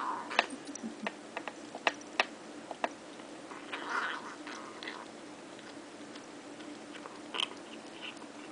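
Kitten eating kibble: sharp, separate crunches as she bites and chews, thickest in the first three seconds. Two short rough noises from the kitten as she eats, one at the start and one about four seconds in.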